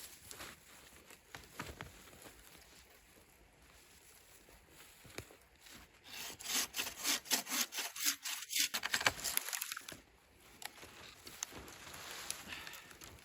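Hand saw cutting wood: a run of rapid back-and-forth strokes about halfway in, lasting about four seconds, with fainter scraping before and after.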